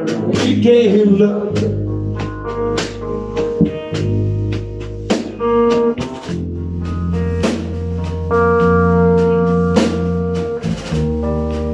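Live band playing without vocals: electric guitar holding long sustained notes over an electric bass line, with a snare drum struck in time.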